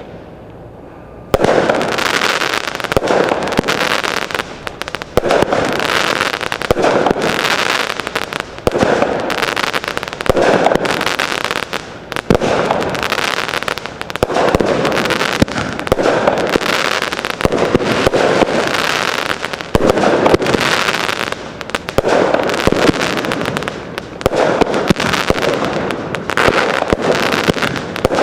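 Consumer fireworks going off in rapid succession, starting about a second in: dense sharp pops and crackling that swell again every second or two.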